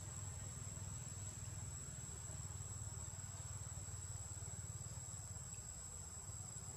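Steady high-pitched insect drone, unbroken throughout, over a low steady rumble.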